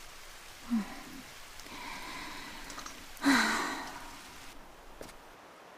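A woman's short wordless 'hm', then about three seconds in a louder breathy sigh, over a steady faint hiss.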